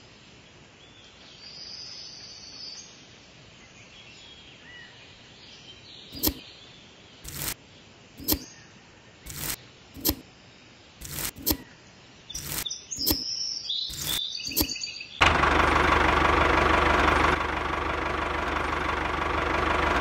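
Small electric motor of a miniature DIY model tractor switching on about three quarters of the way in and running steadily, a loud even whine with a low hum underneath. Before it, a run of about ten short sharp bursts roughly once a second, and faint bird chirps at the start.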